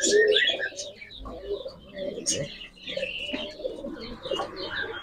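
Domestic pigeons cooing in their nest boxes, a continual low murmur of overlapping coos, with a few higher chirps mixed in.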